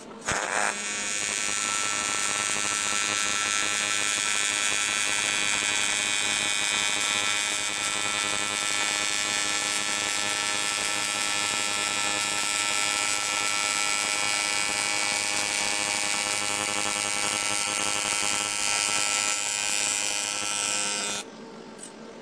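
AC TIG welding arc on aluminum sheet, a steady buzz that strikes with a short crackle about half a second in and cuts off abruptly about a second before the end.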